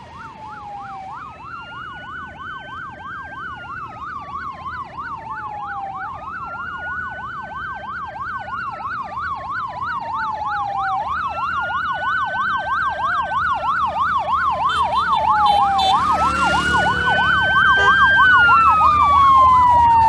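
Police escort sirens, two patterns at once: a slow wail that jumps up, holds, then falls, repeating about every five seconds, over a fast yelp that goes up and down about four times a second. They grow steadily louder as the motorcade approaches, and the rumble of motorcycle engines joins in near the end as the lead motorcycles come close.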